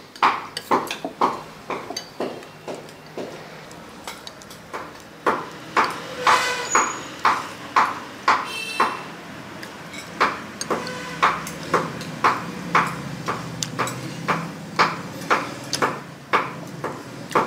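Utensils clinking and scraping against a ceramic bowl as noodles are stirred and mixed, with irregular sharp clicks about one to two a second, a few of them ringing briefly.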